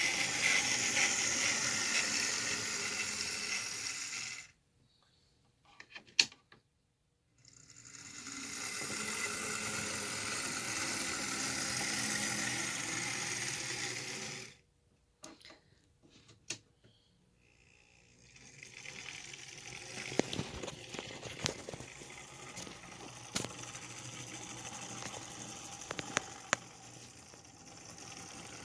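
HO scale Athearn Trainmaster model diesel locomotive running on track, its small electric motor and gear drive whirring, a little noisy. It stops after about four seconds, runs again for about six seconds and stops, then starts once more and runs more quietly with scattered clicks to the end.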